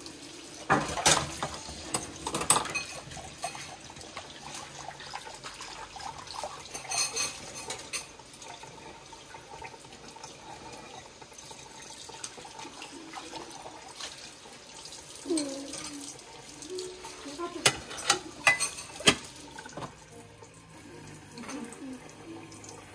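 Kitchen tap running steadily into a sink during dishwashing. Several sharp clinks and clatters of dishes and utensils are handled against the sink, a few early on and a cluster near the end.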